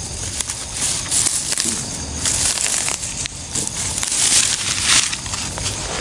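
Dry grass and leaves rustling and crunching in irregular bursts as someone pushes through vegetation on foot.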